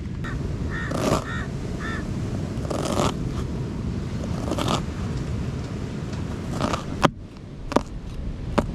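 Wind rumbling on the microphone, with scattered sharp clicks and scrapes. The rumble drops off suddenly about seven seconds in.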